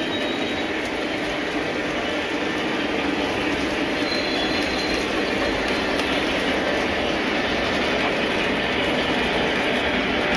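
Model trains running on a layout's track, a steady rolling rumble with a faint high squeal of wheels about four seconds in.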